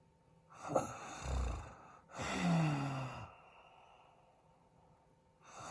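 A sleeping man snoring: a rough inhale with a deep low flutter, then a drawn-out exhale voiced as a groan that falls in pitch, followed by a couple of seconds of quiet before the next breath begins near the end.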